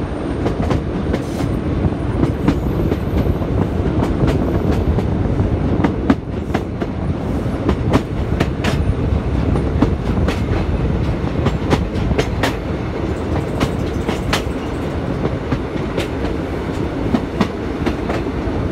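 ScotRail Class 156 diesel multiple unit running at speed, heard from on board: a steady low rumble with scattered sharp clicks throughout.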